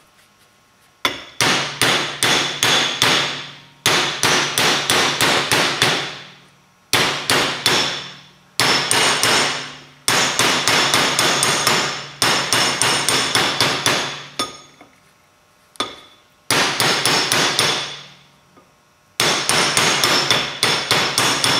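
Hammer beating on a steel pipe used as a makeshift seal driver, pounding a new rear wheel seal into the full-floating axle hub of a 2002 Silverado 2500HD. The blows come in about nine quick runs with short pauses between, each run ringing as the metal is struck and then fading out.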